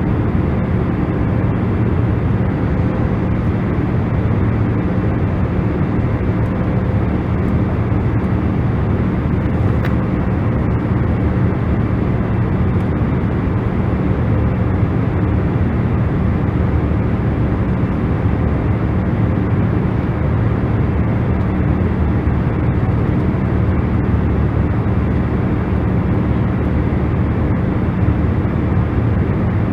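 Steady, even rushing noise weighted toward the low end, with a faint steady hum underneath and no change in level: a continuous noise track of the kind used as sleep or relaxation noise.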